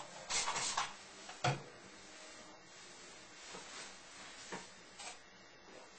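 A few short clicks and rustles of hands working at hair, with a quick cluster of them near the start and one sharp click about a second and a half in.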